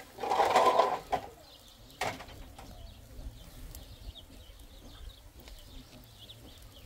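A bird cooing once, for under a second, near the start. A sharp knock about two seconds in, then faint high chirping of small birds.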